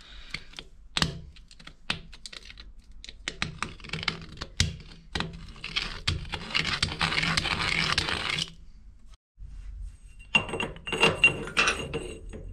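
Small metal clicks and scrapes from a hand tool worked on the end of a steel tube held in a lathe's four-jaw chuck, with the chuck turned by hand. About six seconds in, a steady scraping runs for two to three seconds, and near the end come ringing metal clinks as the tube is taken out of the chuck.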